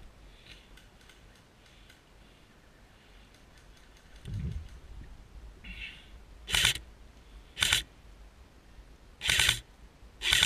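Airsoft rifle fired four times in single shots, each a short sharp mechanical clack, about a second apart in the second half. A dull low thump comes just before, about four seconds in.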